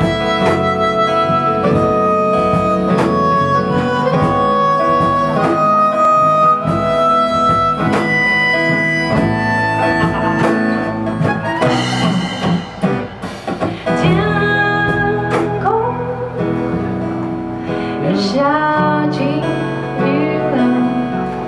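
Live acoustic performance of a song in three-four time: plucked guitar with held melody notes over it, and a voice singing.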